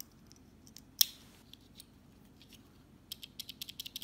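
Small plastic keyboard key switch being put back together by hand: one sharp snap about a second in, then a fast run of light plastic clicks near the end as the switch is worked.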